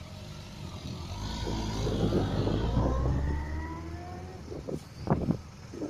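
Kawasaki motorcycle pulling away and accelerating, its engine rising in pitch and getting louder, then fading as it moves off.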